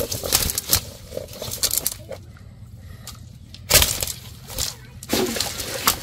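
A cast net and caught fish being handled and pulled about on dry leaves and ground: irregular bursts of rustling and crackling, the loudest a little under four seconds in.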